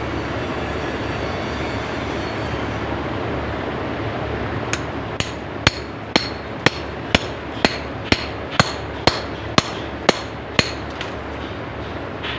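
A hammer striking a cold chisel, chipping concrete to expose water pipes. About a dozen sharp, ringing blows come at an even pace of about two a second, starting a third of the way in and stopping shortly before the end. A steady background noise runs underneath.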